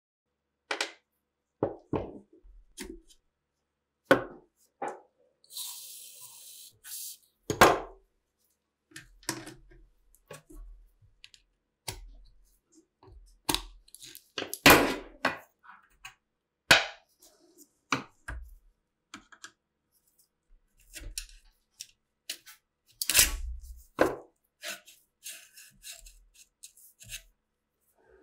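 Irregular metal clicks, clinks and knocks of pliers and locking pliers gripping and working rusty steel gun parts clamped in a vise, some strokes ringing briefly. A short hiss comes about six seconds in.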